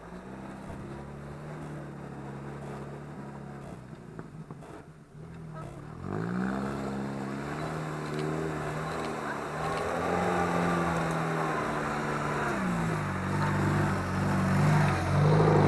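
Off-road 4x4 engine running steadily, then revving up about six seconds in, its pitch rising and falling as it is worked harder, loudest near the end.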